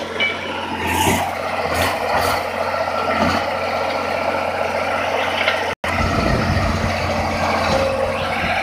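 Diesel engine of a PQRS track-relaying gantry running steadily. A few sharp knocks come in the first couple of seconds, and the sound drops out for a split second about two-thirds of the way through.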